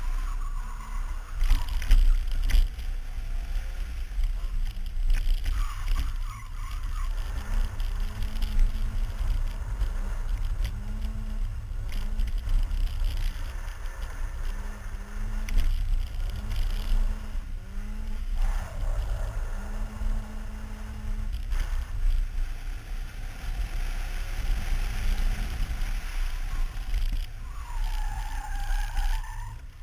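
BMW E30 318is four-cylinder engine revving up and down repeatedly as the car is driven hard through the course, over a steady low rumble.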